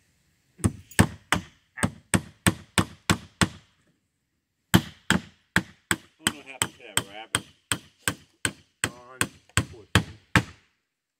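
Hammer blows pounding in to hold a newly fitted window in place, about three strikes a second, in two runs with a pause of about a second a little after three seconds in.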